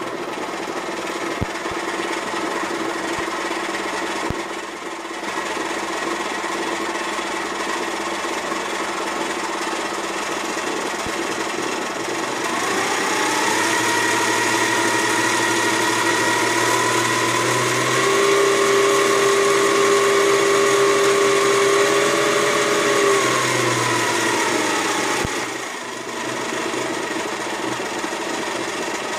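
Kenwood Chef stand mixer from the 1960s running with its beater turning and no bowl fitted. About halfway through, a motor whine rises as the speed is turned up and steps higher a few seconds later. Near the end it falls away as the speed is brought back down.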